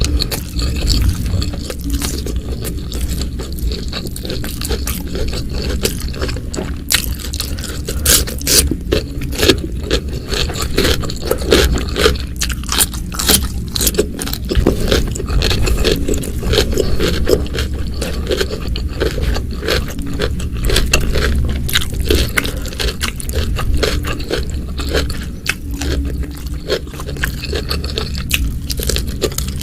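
Close-miked eating: continuous chewing with many crisp crunches and clicks, steady without a pause.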